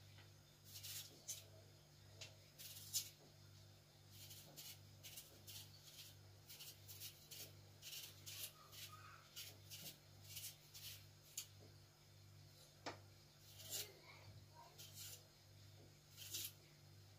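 Faint, quick scrapes of a kitchen knife peeling raw potatoes by hand, one short scrape after another.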